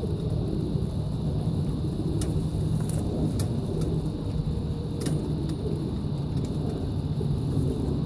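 Wind rumbling on the phone's microphone, with a few short sharp clicks about two to five seconds in.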